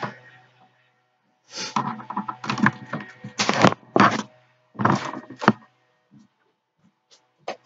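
Rustling and knocking from someone moving and handling things right at the microphone, in a string of short bursts over a few seconds with a few sharp clicks, over a low steady hum.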